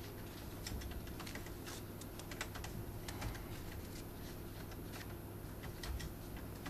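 Someone typing on a computer keyboard: quick, irregular key clicks, over a steady low hum.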